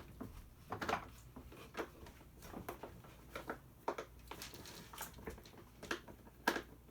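Screwdriver working at small screws deep in a plastic toy's housing: irregular light clicks and scrapes of metal on plastic, with one sharper click near the end.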